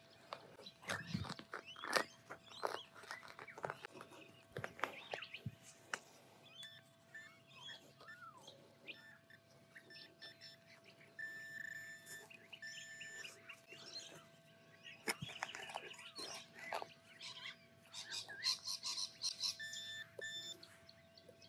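Soft scrapes, clicks and taps of a hand trowel and pinpointer working a small hole in dry grass turf, busiest in the first several seconds. Birds chirp and call around it, and several short held chirping tones come in the second half.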